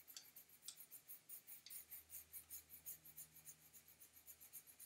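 Faint, rhythmic scratching of a colored pencil stroked back and forth over Stonehenge drawing paper, several strokes a second, as colour is blended in.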